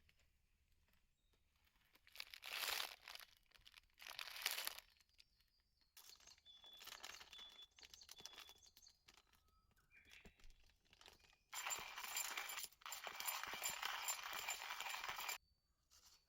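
Rustling and crinkling of handled plastic or nylon in several bursts, the longest lasting about four seconds near the end. A bird chirps faintly in the middle.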